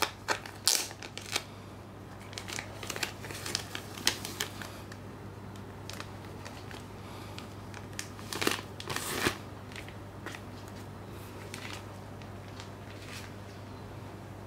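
Clear plastic wrapping on a Blu-ray package crinkling and rustling as it is handled and peeled off, in irregular clusters with the loudest crackles a little past the middle, over a steady low hum.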